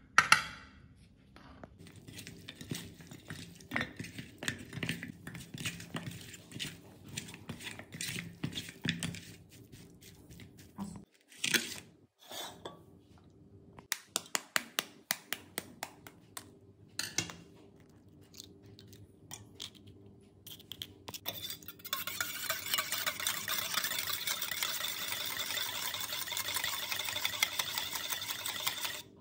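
A metal spoon scraping and clinking in a steel bowl as raw chicken pieces are mixed with chilli powder. Then a knife taps and cracks an eggshell over a small steel bowl, and for the last seven seconds or so a utensil beats egg in the steel bowl with a fast, steady clatter.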